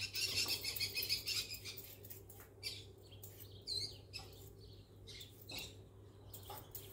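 Pet budgerigars and parrots chirping, with one whistled call that bends up and down about four seconds in. Under them, a vegetable peeler scrapes along a carrot in short repeated strokes.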